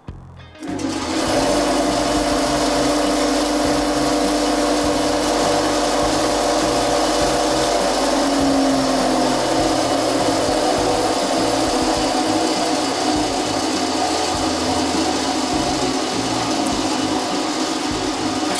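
Stainless-steel circular vibrating sieve running: a loud steady mechanical hum and buzz from its vibration motor and deck that starts about a second in and holds on without a break.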